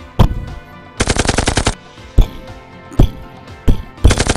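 Gunfire sound effects: a single shot, a rapid burst of automatic machine-gun fire lasting under a second, then single shots about once a second, with another burst starting near the end, over faint background music.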